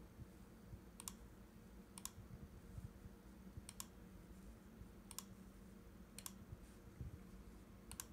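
Quiet, sharp computer mouse clicks, about six or seven of them spaced a second or so apart, as drop-down menu items are selected, over a faint steady room hum.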